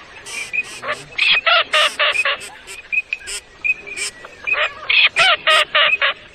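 Ducks quacking in quick runs of short calls, about four to five a second, twice, with short hissing bursts in between.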